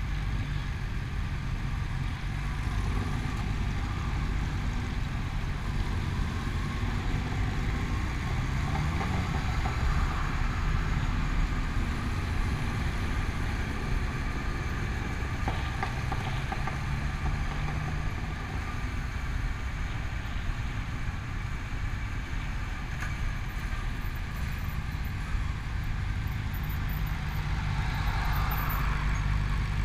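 Motor vehicle running steadily, a continuous low rumble.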